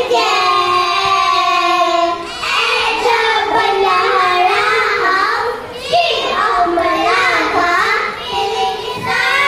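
Children singing a melody, with a long held note for about the first two seconds and then a phrase of shorter, moving notes with brief breaks.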